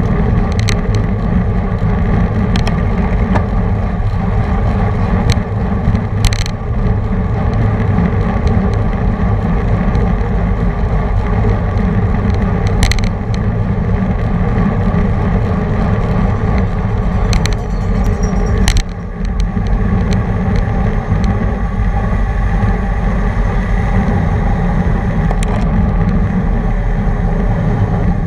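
Steady low wind rumble and road noise on a racing bicycle's camera microphone at race speed, with a few sharp clicks and knocks.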